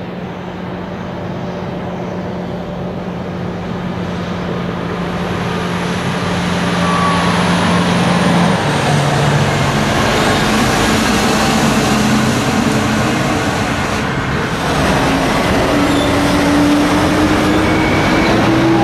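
Komatsu HD785-7 haul truck's twelve-cylinder diesel engine running as the loaded truck drives past, growing louder as it approaches. The engine note drops about halfway through, then climbs steadily over the last few seconds.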